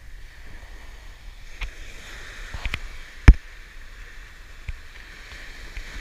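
Small waves washing up the beach with a steady hiss, plus a few sharp clicks and one loud, sudden knock about three seconds in.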